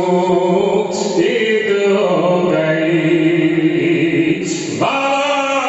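A man's voice chanting a devotional recitation (naat) through a microphone and sound system, in long, held, gliding notes.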